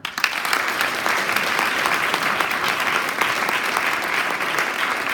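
Large audience clapping, breaking out suddenly and holding steady.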